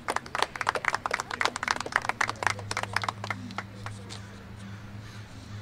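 Applause from a small crowd, individual hand claps audible, dying away about three and a half seconds in and leaving a low steady hum.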